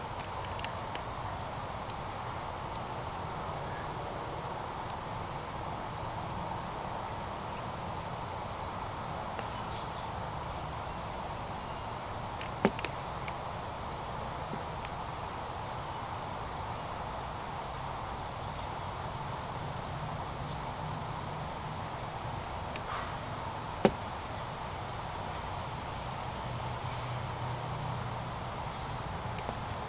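Insects calling: a steady high-pitched trill with a short regular chirp repeating about once every three-quarters of a second. Two sharp clicks stand out, one near the middle and one about four-fifths of the way through.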